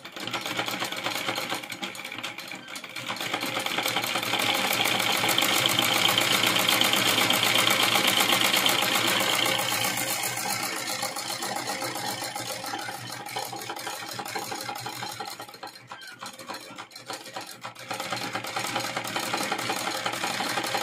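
Domestic sewing machine running in steady fast stitching as lace trim is sewn onto net fabric. It is loudest in the middle, with a few brief stops and restarts near the end.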